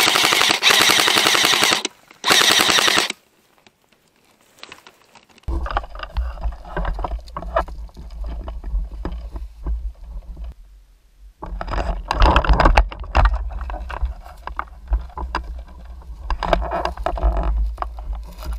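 Airsoft MP5 SD6 replica firing two full-auto bursts, the first about two seconds long and the second just under a second. Then rustling and brushing of movement through scrub over a low steady rumble.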